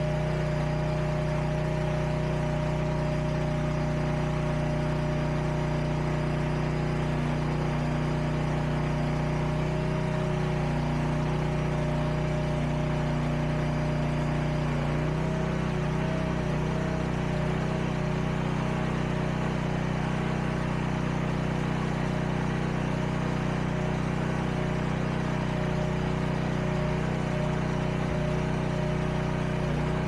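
Huayee SHY360 mini skid steer's engine running steadily while its hydraulic loader arms raise a bucket of about 400 pounds of rock bags. The engine note shifts and starts to waver about halfway through.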